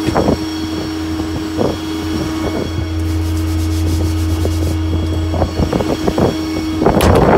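Ford 6.7 Power Stroke V8 diesel idling steadily with the PTO engaged, a constant low hum with a steady tone above it. Light knocks from hands in a steel body compartment, and a short rush of noise near the end.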